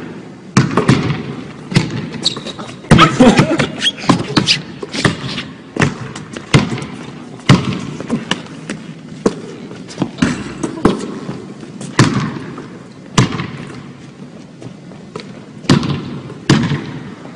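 Basketball bouncing on a hardwood gym floor, dribbled in an uneven run of about one bounce a second with quicker clusters, each bounce echoing in the large hall.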